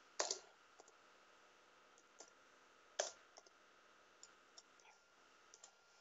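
Faint, scattered computer-keyboard keystrokes as code is typed: a dozen or so sharp, irregular clicks, the loudest about three seconds in.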